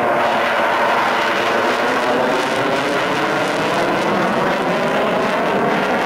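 Belgian F-16's single Pratt & Whitney F100 turbofan engine, loud and steady as the fighter flies its display overhead.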